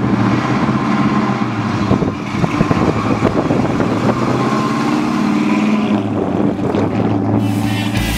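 1969 Plymouth Road Runner's 383 big-block V8, built up with aluminum heads and a big intake, running as the car drives past; about halfway through the engine note climbs as it pulls away.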